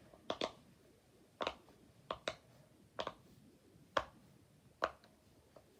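Silicone pop-it fidget toy pressed bubble by bubble on its good side: about a dozen sharp pops at an uneven pace.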